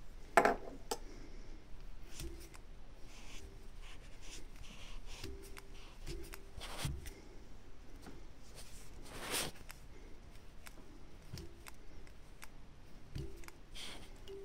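Small fly-tying scissors snip the thread about half a second in, then fingers handle the freshly tied fly in the vise with faint rustles and light clicks. One louder scrape comes about nine seconds in.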